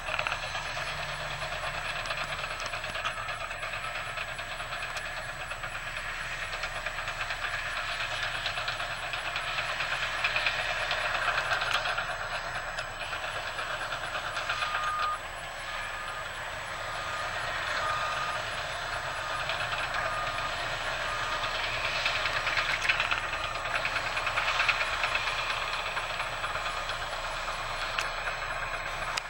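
Heavy earthmoving machinery working: diesel engines running with a steady mechanical clatter, and a reversing alarm beeping about once a second for several seconds around the middle.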